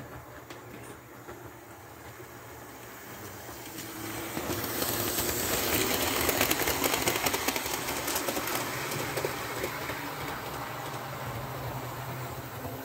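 Model train running past on the layout track: the running noise of wheels and motor builds, is loudest as the cars pass close by about six seconds in, then eases off, with rapid clicking of wheels over the track, over a steady low hum.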